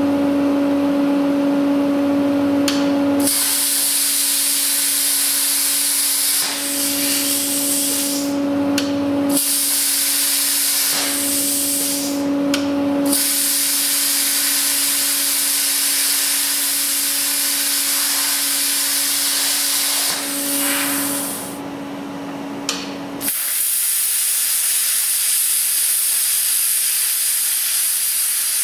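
Plasma cutter cutting through a steel truck frame rail, enlarging a hole: a loud, steady hiss of the arc and air, broken by a few short pauses where the cut stops and restarts. A steady hum runs underneath for most of it.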